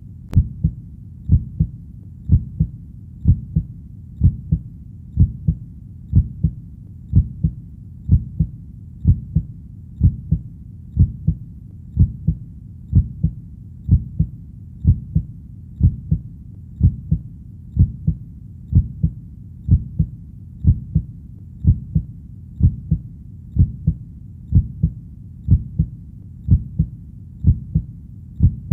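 A slow, steady heartbeat: each beat a low double thud (lub-dub), about one beat a second, over a faint low background hum.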